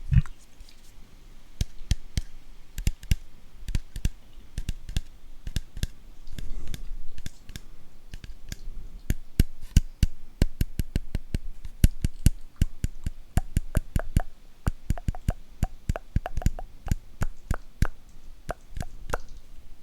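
Close-miked ASMR trigger sounds: a long run of sharp, irregular clicks and taps, opening with a low thump.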